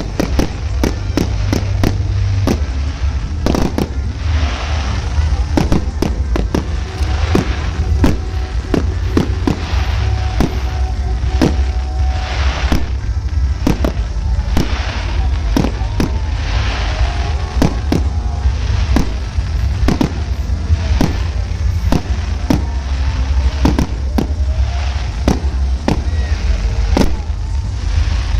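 Fireworks going off in quick, irregular succession: dozens of sharp bangs and crackles over a constant low rumble.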